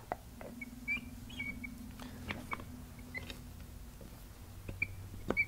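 Light clicks and taps, with a few short high squeaks, as the aluminium sections of a Tormach power drawbar's pneumatic cylinder stack are handled and pressed into line. A faint steady hum runs underneath.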